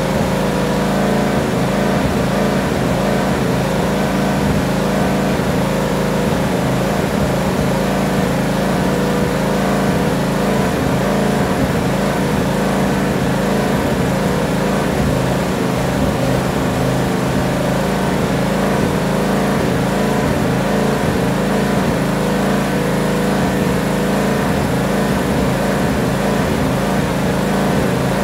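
Tractor engine running steadily at an even speed, with no change in pitch or level.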